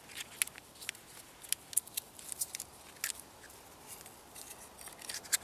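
Irregular sharp clicks and light knocks of a survival knife and its hard scabbard being handled and fitted back together.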